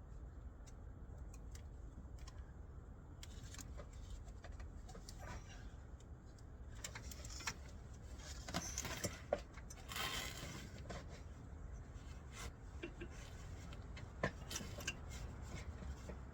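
Scattered light clicks and knocks of tools and parts being handled, with a steady low rumble underneath. A busier stretch of rustling and clatter comes near the middle.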